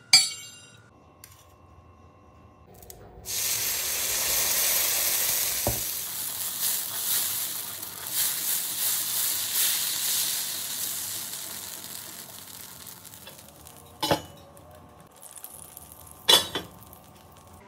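Dosa batter sizzling on a hot tawa (flat griddle) as it is ladled on and spread, starting sharply about three seconds in and dying down slowly. A sharp clink at the very start and two more near the end.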